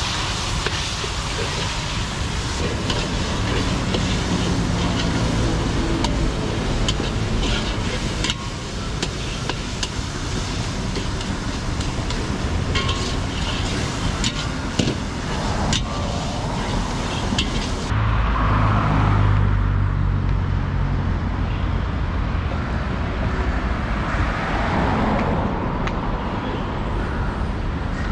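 Busy street ambience dominated by steady road-traffic noise, with scattered short clicks and clinks. About two-thirds of the way in the sound changes abruptly to a heavier, deeper engine rumble.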